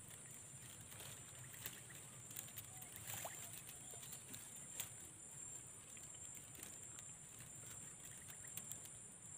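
Faint outdoor ambience at the edge of near silence: a steady high-pitched hiss with a few small, scattered ticks and rustles.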